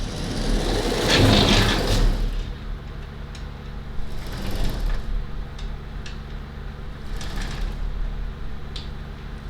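CNC router gantry moved by hand along its Y-axis rails and rack-and-pinion drive, with a louder stretch of rolling and scraping about a second in, then scattered clicks. The clicking comes from the rack and pinion, which has a little lash in the gear.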